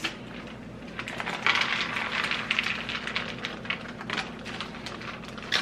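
Crinkling and rustling of MRE food pouches and plastic packaging being handled and emptied, an irregular run of small crackles that thickens about a second and a half in.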